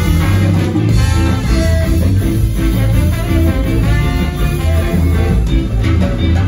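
Live ska band playing: tenor saxophone and trombone playing together over electric guitar and drums.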